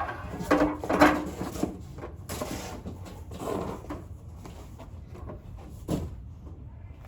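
Hard plastic Tower Garden sections knocking and scraping against each other as one is slid down and seated on the stack. The loudest knock comes about a second in, a brief scrape about two seconds in, and one more knock near six seconds.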